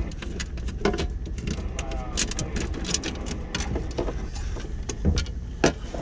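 Clicks and knocks of a fire-alarm battery box's cover being handled and lifted off, with a few sharper knocks near the end, over a steady low machinery rumble.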